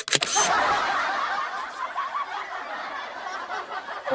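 Breathy, stifled laughter that trails off gradually, after a short click at the start.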